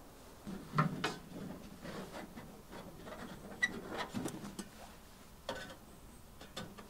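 Irregular rustling of tent canvas with light clicks and knocks as a person pushes out through the doorway of a canvas tipi, handling gear.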